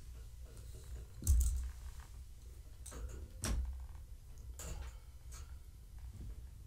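A few soft knocks and bumps, the first about a second in the loudest, from a person moving close to the camera, over a low steady rumble.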